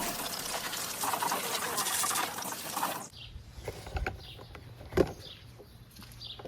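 Water from a hose spraying through an air-conditioner condenser coil, rinsing off the coil cleaner: a loud, even hiss that cuts off abruptly about three seconds in. After that there is a faint hum with short high chirps about once a second and a few knocks, the sharpest about five seconds in.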